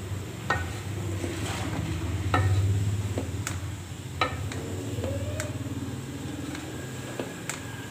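A spatula stirring cauliflower florets through masala in a metal pot, with sharp knocks against the pot several times, over a steady low hum.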